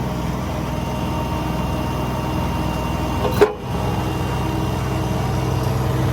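Engine running steadily, powering the service truck's hydraulic pump while the outriggers retract. A short click about three and a half seconds in, with the sound dropping out for a moment.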